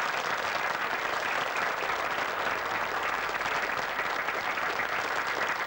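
Audience applauding: many people clapping together at a steady, even level.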